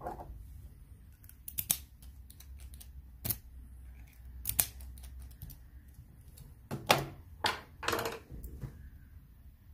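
Sharp metallic clicks from a brass puck-lock cylinder and its hand-cut key being handled and turned, about half a dozen in all, the loudest near the end as the lock is set down on a plastic tray. A low steady hum runs underneath.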